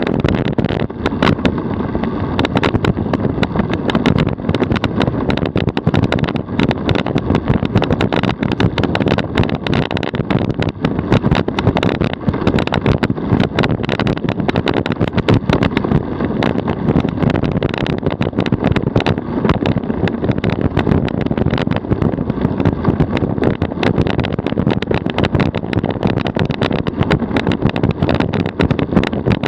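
DF velomobile rolling at about 45 km/h on asphalt: steady tyre and road noise carried through the body shell, dense with small rattles and clicks.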